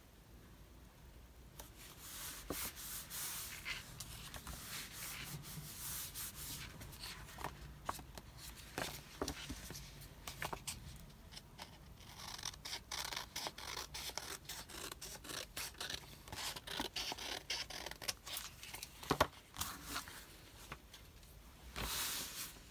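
Paper and craft materials being handled at a desk: rustling and rubbing with many small clicks, getting busier in the second half.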